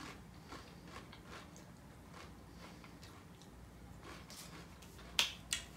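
Faint, irregular crunching of Doritos Flamin' Hot Nacho tortilla chips being chewed, with two sharper crunches close together near the end.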